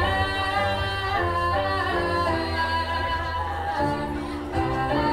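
Background music with singing: a melody moving note by note over a steady low bass.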